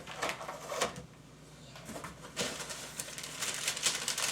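Plastic and cardboard tool packaging being handled and crinkled: a few sharp clicks and rustles, then steady crackling from about halfway through.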